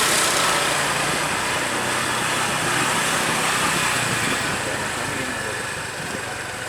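Small engines running steadily in a continuous noisy din, with no clear start or stop.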